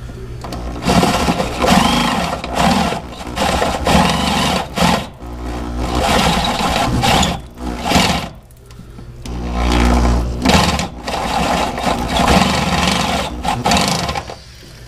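Power drill running a step drill bit into the Sprinter's frame, enlarging a pre-drilled hole to about 1 1/8 inch. It runs in bursts with short pauses about five and eight seconds in and near the end.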